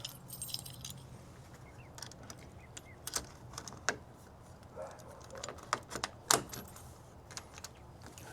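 Small metal door-lock parts clicking and clinking as they are handled and fitted, in scattered sharp ticks, over a faint steady hum.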